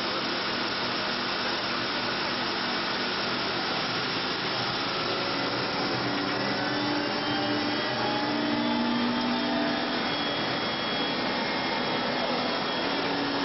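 Helicopter turbine engines and rotor in flight, heard inside the cabin as a steady, loud rushing whine. Midway, a few faint tones slowly slide upward in pitch.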